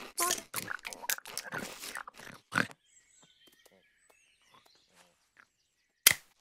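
Cartoon animal voice effects: a quick run of short grunts and snuffles for the first couple of seconds, then a near-silent stretch with faint high chirps. One sharp sound comes near the end.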